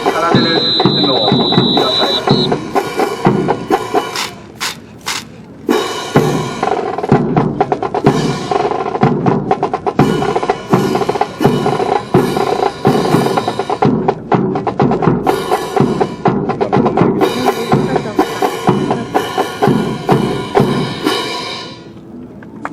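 Brass band playing a march-style piece, with snare and bass drum beating a steady rhythm. The music drops out briefly about four seconds in, with a few sharp clacks, then resumes and stops near the end.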